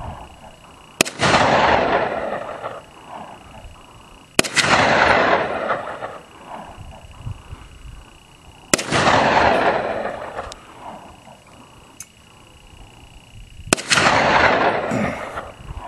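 Four gunshots a few seconds apart, each a sharp crack followed by a long rolling echo that dies away over about two seconds. None of the shots sets off the Tannerite target.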